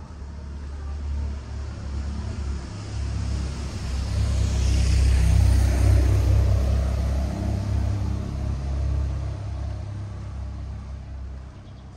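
A motor vehicle passing close by: a low rumble that builds, is loudest about halfway through with a falling whoosh as it goes past, then fades away.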